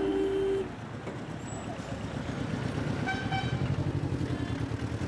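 A vehicle horn held, cutting off about half a second in, over engines running with a low fluttering rumble; a second, higher-pitched horn gives a short toot about three seconds in.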